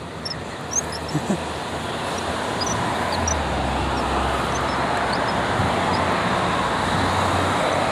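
Road traffic noise that swells gradually, with a low rumble from a passing vehicle in the middle, and a few short bird chirps over it.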